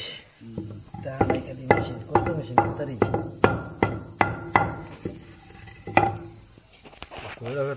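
Carpenter's hammer blows: about nine strikes at roughly two a second, then one more strike a little later. Insects keep up a steady high drone behind.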